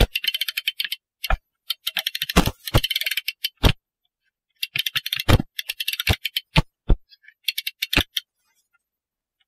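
Hand-cranked mainspring winder's ratchet clicking rapidly as the crank winds a clock mainspring, in four bursts with several heavier knocks among the clicks.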